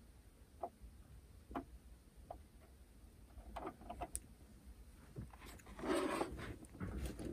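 Small scattered clicks and light taps of hands and tools handling tiny plastic model parts on a workbench, with a short, louder rustling scrape about six seconds in.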